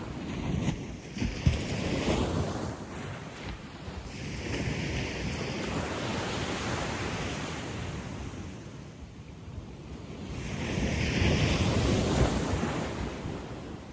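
Gentle sea waves breaking and washing up a sandy beach, coming in slow surges that swell and fade, with the largest wash building near the end.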